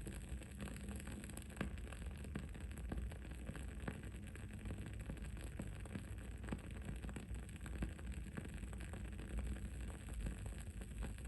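Wooden-wick candle crackling: irregular small pops and ticks over a steady low background rumble, with a faint steady high-pitched whine.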